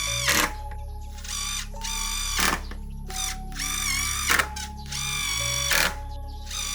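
Background music with sustained bass notes, wavering high tones and a hit about every one and a half to two seconds.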